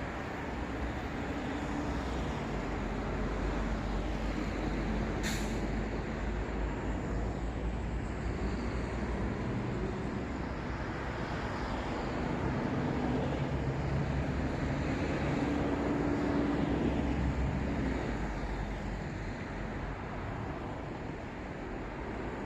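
City traffic: steady road noise of passing vehicles with low engine hums, swelling twice as vehicles go by. A brief sharp click about five seconds in.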